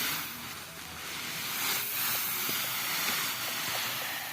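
Wind gusting, a rushing hiss that swells and fades in waves.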